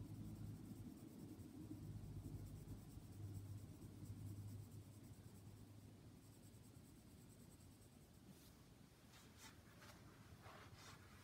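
Faint scratching of a colored pencil shading on sketchbook paper, with a low hum under the first few seconds. A few brief, sharper scrapes come near the end.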